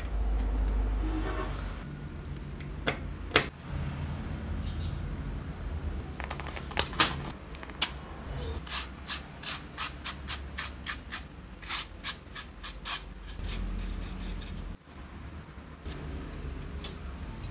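Sharp clicks and taps of small radio parts being handled, a couple at first, then a quick run of clicks for several seconds midway, over a low background rumble.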